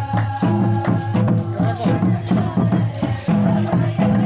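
Santali Karma folk music: drums beaten in a steady, repeating rhythm with a rattling, shaker-like jingle over held low notes.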